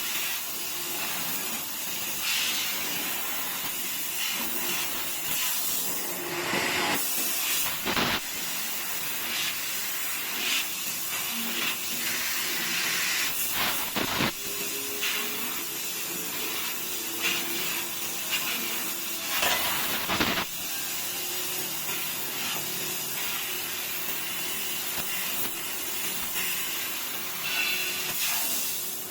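CNC tube laser cutting a 3 mm-thick square tube: a steady hiss, broken by a few short, louder bursts. A faint machine hum joins in the second half.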